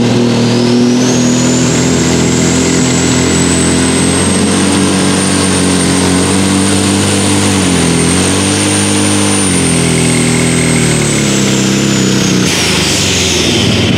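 Light Super Stock pulling tractor's turbocharged diesel engine at full power under load while dragging the sled, with a high turbo whine that climbs over the first two seconds and holds. The engine pitch sags briefly about two-thirds of the way through, recovers, then drops near the end along with the whine as the pull finishes.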